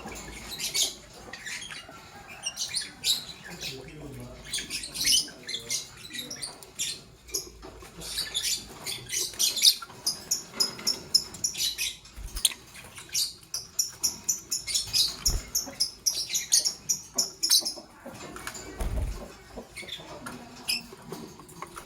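Lovebirds chirping: rapid runs of short, high-pitched chirps and squeaks, with brief pauses.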